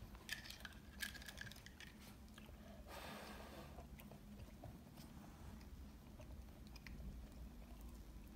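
Faint snapping and clicking of a Chihuahua puppy's jaws as it bites at soap bubbles. A few sharp clicks come in the first two seconds, the loudest two about a second apart, then a short hiss about three seconds in and a few faint ticks.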